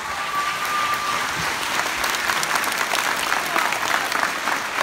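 Audience applauding: many hands clapping steadily at the end of a recited poem. A thin, steady high tone sounds over the clapping for about the first second.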